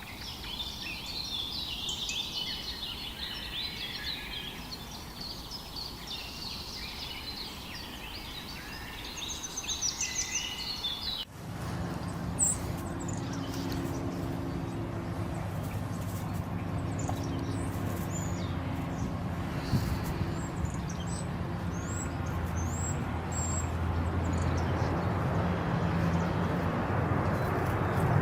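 Many songbirds chirping and twittering at once in a dense forest chorus. About eleven seconds in, it cuts abruptly to a steady low hum with only a few scattered high bird chirps, and the hiss grows louder toward the end.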